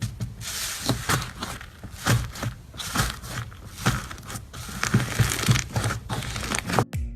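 Slime being squeezed and pressed by hand, giving irregular crackling and popping clicks several times a second.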